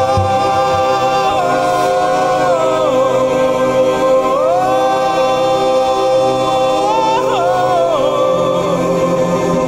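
Music: a comic song with a long held sung note on the word 'boat' over layered vocal harmonies. The pitch steps down about a second in, climbs back around four seconds in and wavers near the end.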